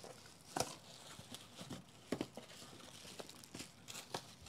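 Packaging rustling and crinkling as a box of sunglasses and their cases is unpacked by hand, with a few sharper clicks and knocks.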